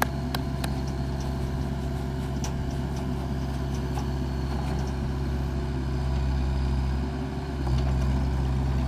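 Diesel engine of a Bobcat 331 compact excavator running steadily while the machine is worked off a dump truck bed, with a few sharp clicks in the first second. The engine note shifts and grows slightly louder a little past seven seconds in.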